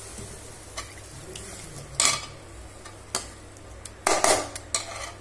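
A slotted steel spoon stirring wet onion-tomato masala in a metal pan, with scrapes and clinks against the pan: a light one about a second in, sharper ones at about two and three seconds, and a quick cluster just after four seconds.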